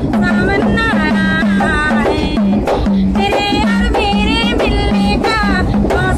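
A young woman singing a Hindi film song in a high voice, accompanying herself on a small hand-held frame drum struck with the fingers in a steady beat of about three strokes a second.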